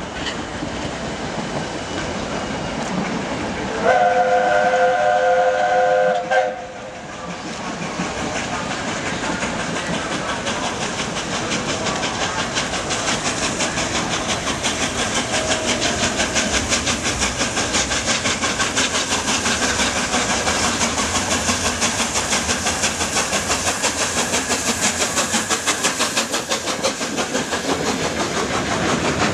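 Steam locomotive 60163 Tornado, an LNER Peppercorn A1 Pacific, passing at speed with a train: its whistle sounds once for about two and a half seconds, about four seconds in. A rapid, even rhythmic beat of the passing train then builds and grows louder toward the end.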